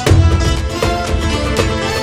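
Background music: a folk-style instrumental tune with a steady, strong beat.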